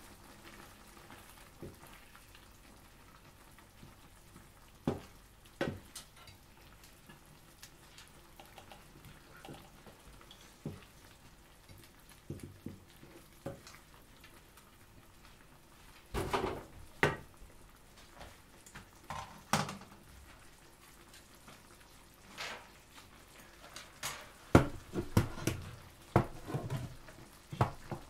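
Wooden spoon stirring a thick creamy sauce in a frying pan, giving scattered knocks and scrapes against the pan. The knocks come in clusters about halfway through and again near the end, over a faint steady simmer.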